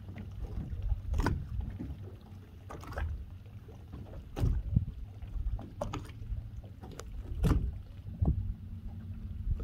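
Boat on open water: a low steady hum with water slapping against the hull and several sharp knocks, the loudest about a second in, mid-way and about three-quarters through.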